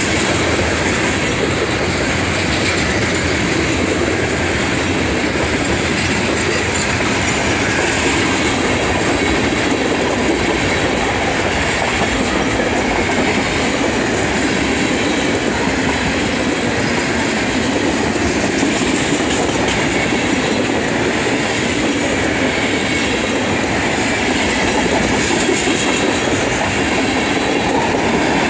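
Freight train tank cars rolling past, their steel wheels running on the rails with a steady rumble and rattle.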